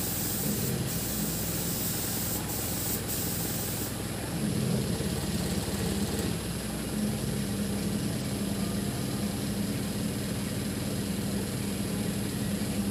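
Engine idling steadily with a low, even hum. Over the first four seconds a high hiss sounds with short breaks, then stops.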